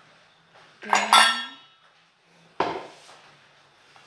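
Kitchen dishes and utensils clinking and knocking: a ringing clink about a second in, then a shorter knock past halfway.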